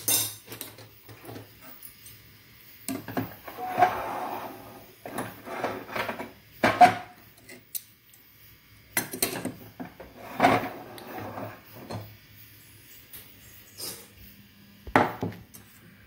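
A metal utensil scraping and knocking against a metal pot of thick cooked rice pudding, in several separate bouts, some knocks giving a short metallic ring.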